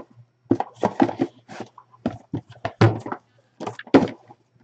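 Small cardboard boxes being handled and set down on a tabletop: a run of irregular knocks and thuds, the loudest about three and four seconds in.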